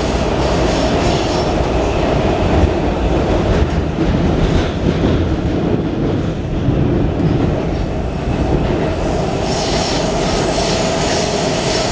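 Washington Metro 2000-series subway car running at speed through a tunnel, heard from inside the car: a steady rumble and hum of wheels on rail. About nine seconds in, the sound turns brighter and hissier.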